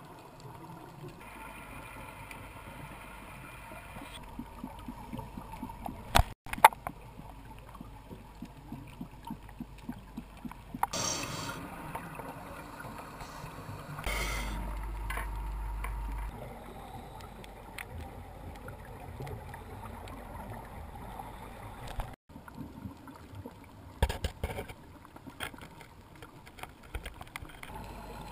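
Muffled underwater ambience from a dive camera: a steady low hum and water noise with scattered clicks and bubbling from scuba divers' exhaled air, changing abruptly at several edits.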